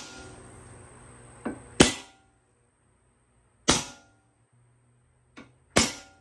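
Center punch striking metal tubing three times, each a sharp snap with a brief metallic ring; two of the strikes are preceded by a lighter click. The punch is marking mounting holes for drilling.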